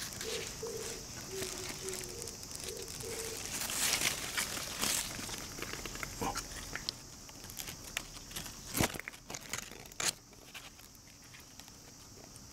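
Hands rustling among myoga (Japanese ginger) stems and leaves and scrabbling in gravelly soil at their base to pull out a buried bud: scattered crackles and rustles.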